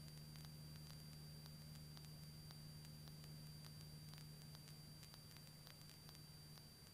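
Near silence: the faint steady hum and hiss of the aircraft's intercom audio feed, with a few faint ticks.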